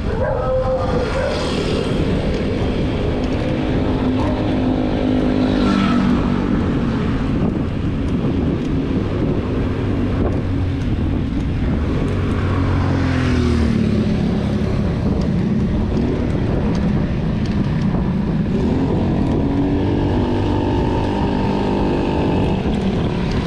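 Road traffic: motor vehicle engines running close by, their pitch rising and falling several times as vehicles speed up, slow down and pass.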